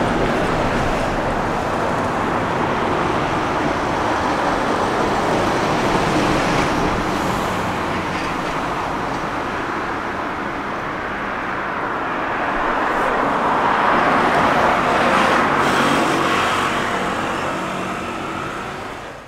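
Road traffic noise: vehicles going past on a city street, growing louder in the second half as one passes close.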